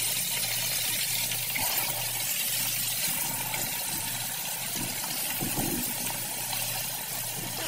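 Meat frying in hot oil in a skillet: a steady sizzle.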